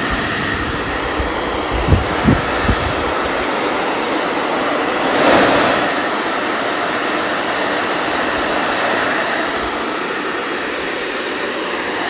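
Handheld hair dryer blowing a steady rush of air while drying a wet cockatiel. It swells louder about five seconds in, and there are a few low thumps about two seconds in.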